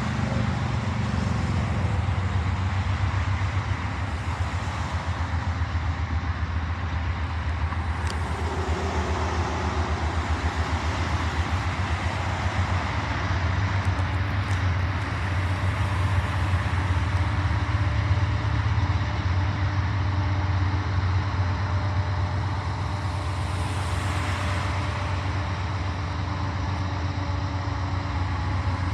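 Engine idling: a steady low throbbing rumble under a broad even noise, with no horn.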